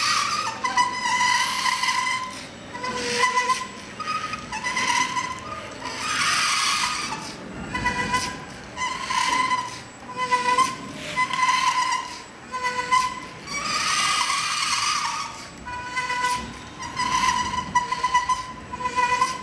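LEGO Mindstorms NXT robot's servo motors whining in short stop-start runs as it drives and turns. A louder, rougher grinding comes twice, about six and fourteen seconds in.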